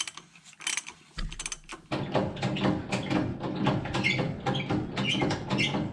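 Ratchet wrench clicking rapidly as it tightens a dust cap, a steady run of clicks starting about a second in.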